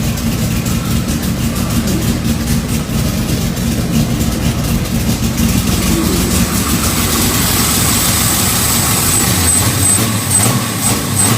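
Chevrolet Opala naturally aspirated inline-six race engine running steadily with a deep, loud exhaust note.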